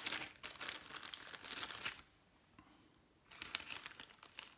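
Clear plastic bag crinkling and rustling as it is handled and a part is taken out of it. The rustling comes in two spells with a quiet gap of about a second in the middle.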